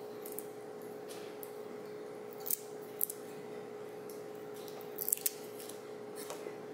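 A few short, crisp crackles and snaps as adhesive foam dots are pulled off their plastic backing sheet and the sheet is handled, about halfway through and again near the end, over a steady faint hum.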